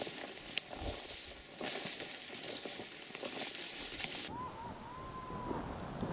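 Dry reed stems rustling and crackling as someone pushes through a dense reed bed, with many sharp snaps, stopping abruptly about four seconds in. Then a short, thin whistle-like call rises and wavers for about a second.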